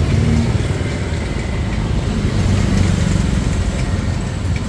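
A motor vehicle engine running, low and steady.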